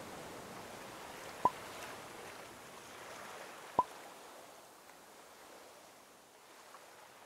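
Faint, even water-like wash, like distant sea or surf, slowly fading away, with two short sharp clicks about two seconds apart.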